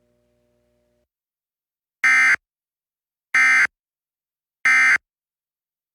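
Emergency Alert System end-of-message code: three identical short bursts of digital data tones, about a second apart, sent by the EAS encoder to close the test alert.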